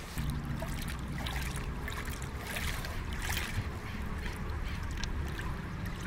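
Wind rumbling on the microphone, with soft footsteps crunching on gravel about once a second.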